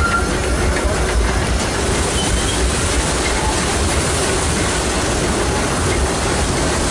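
Disneyland Railroad passenger car rolling along the track: a steady, low rumble of wheels on rails, with a thin wheel squeal that fades out right at the start.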